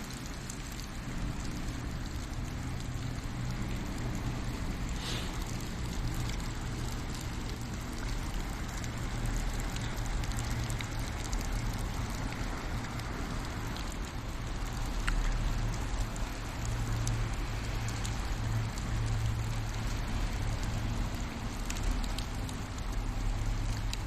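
Steady rain falling and pattering, with a few faint drips or ticks and a steady low hum underneath.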